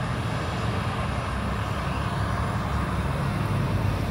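Airplane engines running with a steady rumble and roar.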